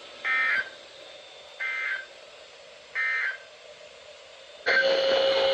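Emergency Alert System end-of-message data signal: three short bursts of digital warbling tones about a second and a half apart, marking the close of the severe thunderstorm warning. Near the end a louder mix of tones cuts in suddenly.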